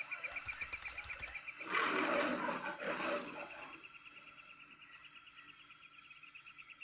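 Cartoon savanna sound effects: insects chirping in a fast, even pulse throughout, with an animal roar about two seconds in that is the loudest sound and lasts about a second and a half.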